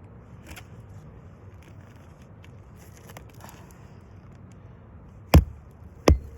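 Hammer driving new roofing nails into a shingle: faint rustling and small clicks, then two loud blows near the end, the start of steady hammering.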